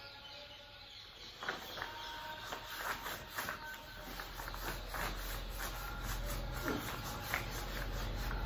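Marker writing being wiped off a whiteboard with a hand-held duster: irregular rubbing strokes with short squeaks, starting about a second and a half in. A low rumble builds underneath near the end.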